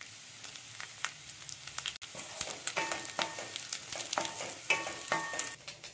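Taro pieces sizzling in hot oil in a stainless steel kadai while being stirred with a spatula. From about two seconds in, the spatula scrapes and taps against the steel pan again and again, each tap ringing briefly.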